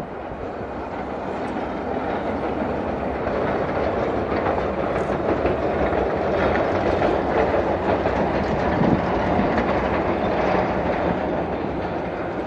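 A 600 mm narrow-gauge electric coal train and its wagons running across a stone arch bridge. The sound grows louder to a peak about two-thirds through and eases a little near the end.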